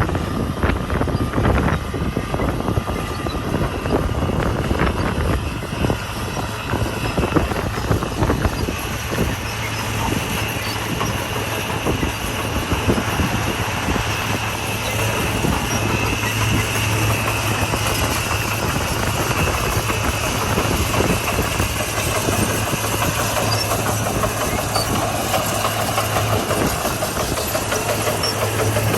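Komatsu D41P crawler bulldozer working: a steady diesel engine drone with its steel tracks clanking, the clatter heaviest in the first part.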